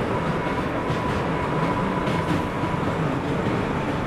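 New York City subway train running on elevated track, heard from inside the car: a steady rumble of wheels on rail, with a thin steady whine over it for the first three seconds.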